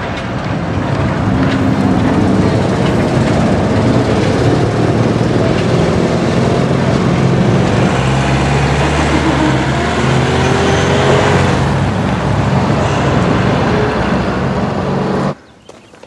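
A motor vehicle's engine running as it drives along, loud and steady with road noise and an engine note that rises and falls slightly. It cuts off abruptly near the end.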